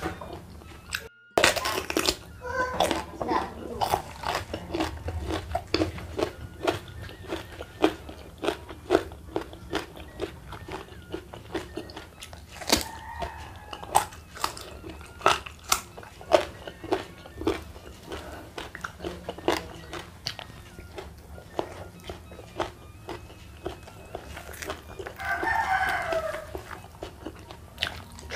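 Close-up crunching and chewing of raw vegetables, a small raw purple eggplant among them, dipped in sambal: sharp crisp crunches, several a second. Near the end a rooster crows in the background, one call falling in pitch.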